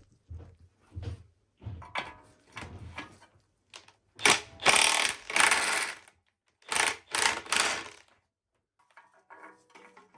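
Tools undoing the bolts on a used front suspension assembly: short bursts of rapid mechanical rattling, the loudest starting about four seconds in and again near seven seconds.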